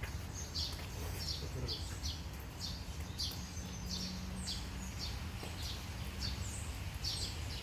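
A small bird chirping over and over, short falling notes about twice a second, over a steady low background hum.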